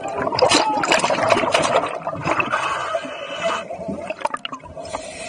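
Scuba diver's exhaled air bubbling and gurgling out of the regulator, heard underwater in irregular gushes over a steady hum.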